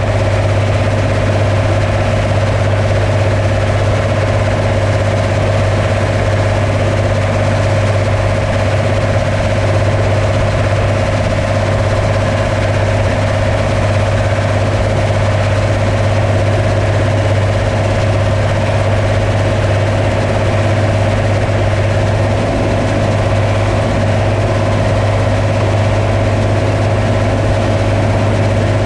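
Combine harvester running steadily: a constant low hum with a steady higher tone above it, neither changing in pitch or level.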